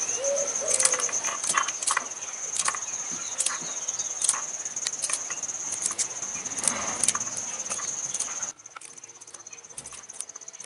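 A small knife slicing a bunch of fresh yardlong beans into short pieces: irregular crisp clicks, one or two a second, as the blade cuts through and pieces drop onto a steel plate. A steady high-pitched tone runs behind and cuts off suddenly about eight and a half seconds in.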